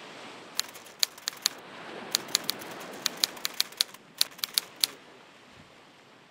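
Typewriter key strikes: a run of irregular, sharp clicks, stopping about five seconds in, over a steady rushing noise.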